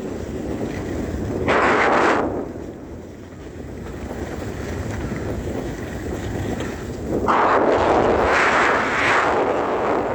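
Wind rushing over the microphone, with a steady low rumble that surges louder twice: briefly about a second and a half in, and again for a few seconds from about seven seconds in.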